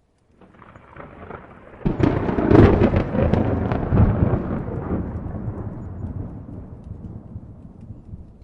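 A thunderclap: a low rumble builds, then a sharp crack with crackling about two seconds in, followed by a long rolling rumble that slowly fades.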